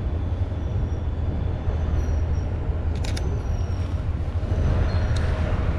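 Steady road traffic rumble with a constant low hum underneath. A sharp double click comes about three seconds in, and another click near the end.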